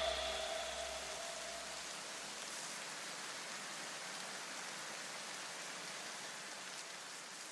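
The tail of a hip-hop beat dying away over the first two seconds, leaving a soft, steady rain-like hiss that begins to fade near the end.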